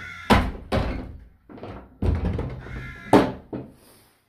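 Wooden church doors being unlatched and opened: four loud thunks and knocks of the latch and door, the first and third with a short pitched creak.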